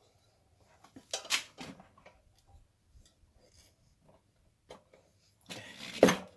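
Steel tire irons clinking and scraping against a dirt bike wheel rim while prying the tire bead. There is a sharp clank about a second in and a louder scraping clatter near the end.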